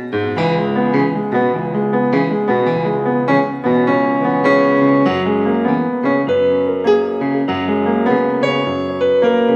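Background piano music played on a Yamaha MOXF keyboard synthesizer: a run of struck notes over held chords.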